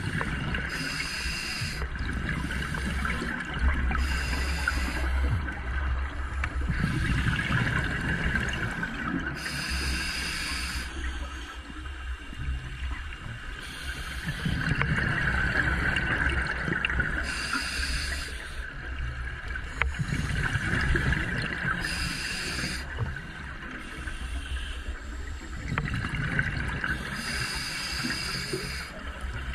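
Scuba diver breathing underwater through a regulator: exhaled bubbles rush and gurgle in bursts of about a second, every few seconds, over a steady low rumble.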